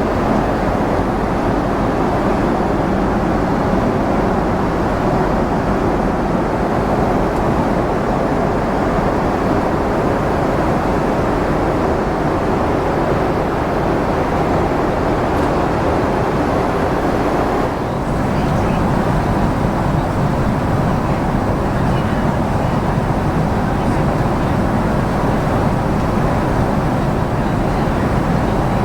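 Steady cabin noise of a Boeing 767-400ER airliner: an even rush of engine and airflow sound, with a brief slight drop in level about eighteen seconds in.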